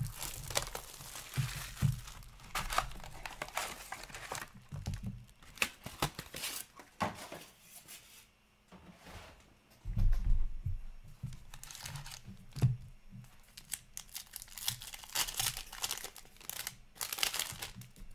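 Plastic wrap and card pack wrappers of a sealed hockey card box being torn and crinkled open by hand, in repeated rustling bursts. A few dull knocks, the loudest about ten seconds in, as the box and packs are handled on the counter.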